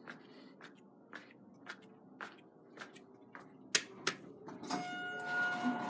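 Footsteps on a tile floor at about two a second, then two sharper clicks as the elevator's up call button is pressed. Right after, a steady electronic beep-like tone sounds for about a second and the background noise rises.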